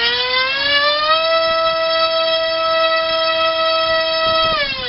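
Turnigy D2826 2000kv brushless motor spinning a Gemfan 6045 carbon-reinforced nylon propeller on 3S in a thrust test: a loud whine that rises as it spools up to full throttle about a second in, holds steady, then falls as the throttle is cut near the end.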